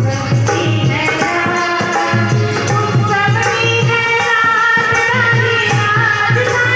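A woman singing a Hindi devotional bhajan into a microphone, amplified through a PA, with keyboard accompaniment and a steady hand-drum beat.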